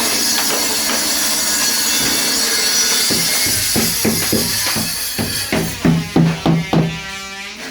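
Music with a drum and tambourine beat, ending in a quick run of drum hits with a ringing tone. A steady high hiss sits under most of it and fades out before the end.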